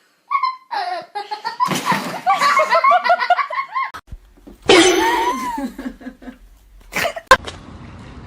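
People laughing heartily in quick repeated bursts. The sound cuts off abruptly about four seconds in, and another voice-like sound and a couple of sharp clicks follow.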